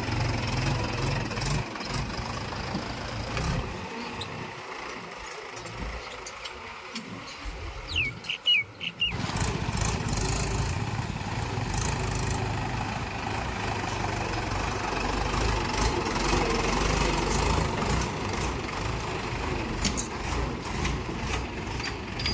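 Diesel engine of a tractor or backhoe loader running steadily. Its low rumble thins out in the middle, with a brief high squeal about eight seconds in, then comes back abruptly about a second later.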